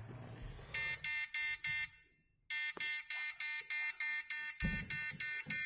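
Arduino-driven alarm buzzer beeping rapidly, about four high-pitched beeps a second: the fire-alarm signal, set off by the infrared flame sensor detecting fire. It starts under a second in, breaks off for about half a second near the two-second mark, then carries on.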